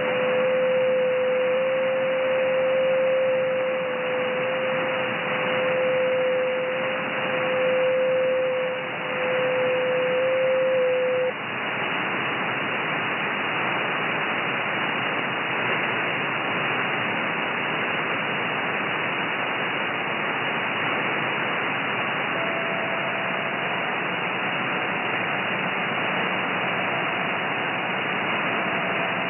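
Shortwave receiver audio from the 30-metre amateur band in upper sideband: a steady hiss of band noise carrying a thin, steady JT9 digital-mode tone near 500 Hz, which stops about eleven seconds in. A fainter JT9 tone a little higher in pitch comes in with the next transmission about two-thirds of the way through.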